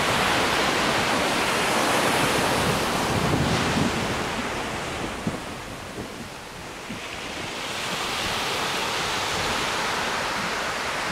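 Sea surf breaking and washing up a sandy beach, a steady rush that eases about halfway through and builds again, with wind buffeting the microphone.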